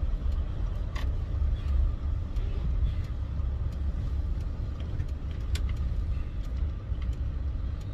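Steady low rumble of a vehicle's engine and road noise heard from inside the cabin, with a few faint clicks.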